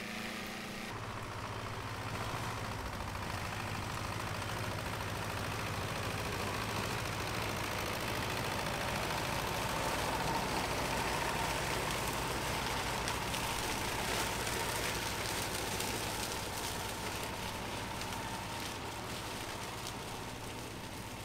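Tractor engine running steadily while mowing hogweed, with a rushing noise that swells toward the middle and eases off. The sound shifts about a second in.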